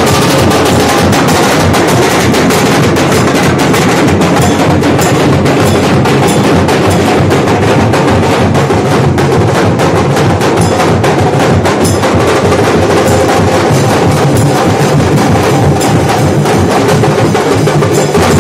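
Nashik dhol: several large barrel drums beaten hard with sticks in a fast, dense, unbroken rhythm, loud throughout.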